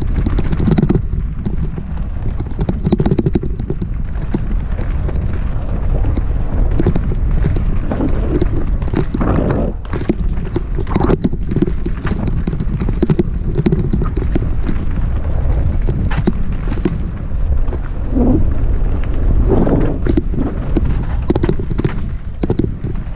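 Mountain bike rolling fast down a rocky dirt singletrack: wind buffeting the microphone with a constant low rumble, and the tyres and frame knocking and rattling over stones and ruts.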